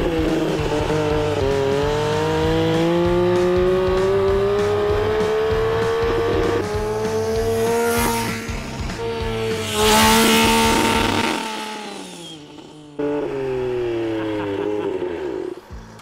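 LiquidPiston X-Engine rotary engine running on vodka, pushing a scooter along. Its note climbs steadily as the scooter speeds up, drops away about eleven seconds in, then rises and falls again near the end, with a loud rush of noise about ten seconds in.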